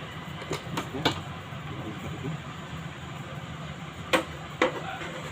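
Electric mixer grinder's motor running with a steady hum, tested after its supply lead was spliced and taped, with a few sharp clicks or knocks over it.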